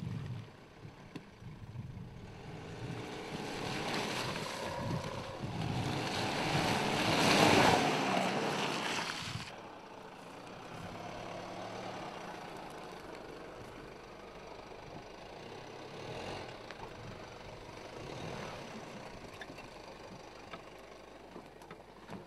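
Mercedes GLK 250 BlueTEC's four-cylinder turbodiesel running as the SUV drives through mud and puddles, with a rushing sound of tyres in mud and water that builds up and cuts off abruptly about nine seconds in. After that the engine runs quietly at a low, steady hum as the vehicle crawls slowly over rough ground.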